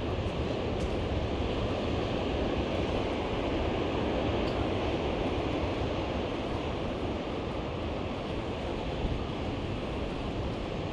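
Steady wash of ocean surf breaking on the beach, with wind rumbling on the microphone.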